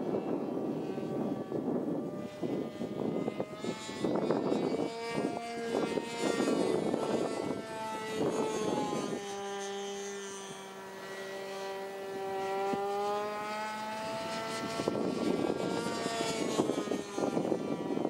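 Irvine 53 two-stroke nitro glow engine of an RC Sbach 342 aerobatic model plane running in flight overhead, its pitch rising and falling with the throttle and holding one steady note for a few seconds in the middle. Rough gusts of wind noise on the microphone cover it at the start and again near the end.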